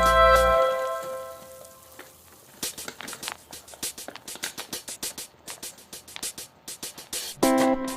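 Background music fades out, then comes a run of quick, irregular crisp crackles and ticks from paper being handled and creased while folding an origami plane. Plucked guitar music comes back in near the end.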